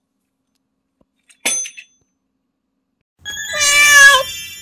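Cat meowing: a short, high meow about a second and a half in, then a longer, loud meow with a wavering pitch near the end.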